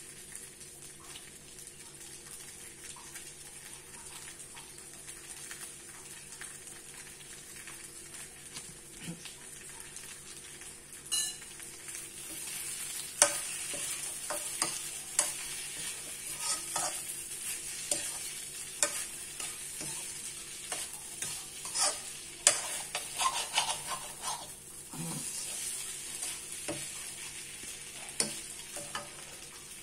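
Fried rice sizzling in a wok over a gas burner. From about twelve seconds in, a metal ladle stirs and scrapes the rice against the wok with repeated clinks and scrapes.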